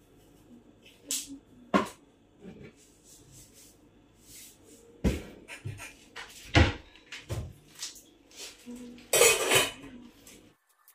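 Kitchen handling sounds: a wall cupboard door opening and closing, and containers and pots knocking on the counter and stove in several separate knocks. There is a longer rustling scrape near the end, and then the sound cuts off suddenly.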